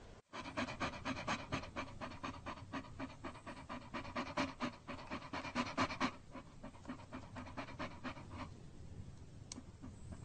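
A dog panting quickly and evenly, about five breaths a second, stopping about eight and a half seconds in.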